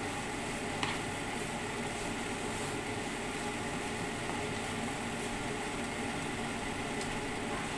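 Vegetables and mushrooms sizzling in a frying pan, a steady hiss, while a spatula stirs them, with a light spatula tick against the pan about a second in.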